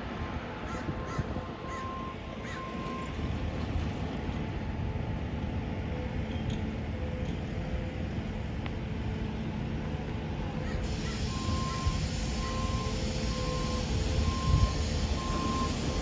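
A vehicle's reversing alarm beeping steadily, a short high beep under a second apart, heard at the start and again from about eleven seconds in, over a steady low rumble.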